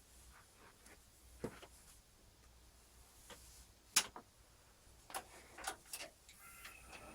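Scattered clicks and knocks of a desktop PC case being handled as its side panel is taken off, with the sharpest knock about four seconds in and a quick run of clicks a second later. Near the end a faint steady hum begins.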